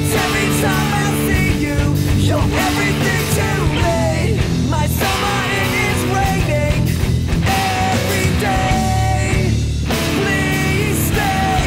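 Rock music, loud and steady, with a lead melody sliding up and down over sustained bass notes.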